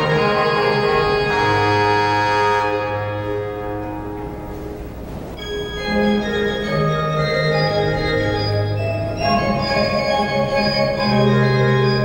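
Pipe organ playing sustained chords over a deep pedal bass. About three seconds in, the chord dies away into the building's reverberation, and a new phrase begins about two seconds later.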